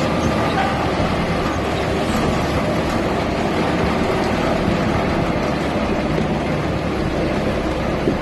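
1958 Massey Ferguson tractor's engine running steadily as the tractor drives along a dirt path.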